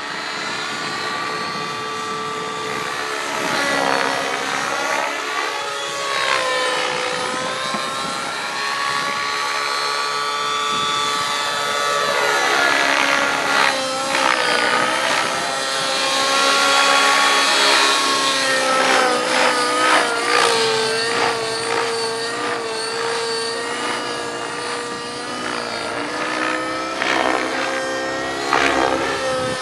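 Align T-Rex 700 radio-controlled helicopter flying aerobatics: its rotor and drivetrain whine rises and falls in pitch as it manoeuvres, with rapid blade chop through the second half.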